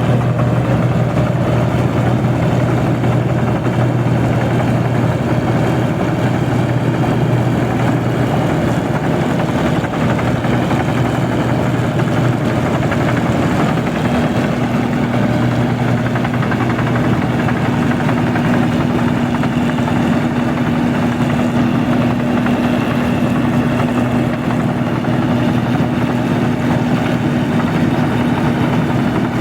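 Rice combine harvester's engine running steadily and loudly, with a constant low hum; a second, higher steady tone joins in about halfway through.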